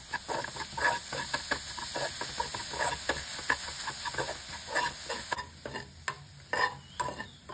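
A metal spoon scraping and tapping rapidly around a nonstick pan as scrambled eggs mixed with shrimp paste sauce are stir-fried, over a steady sizzle. The sizzle drops away about five seconds in, leaving fewer, sharper taps.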